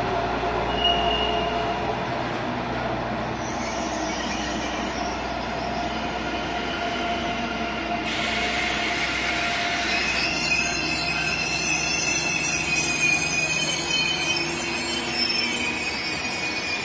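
A freight train of tank wagons rolls steadily past. Its wheels give off shrill, wavering squeals, briefly at first and then almost continuously in the second half.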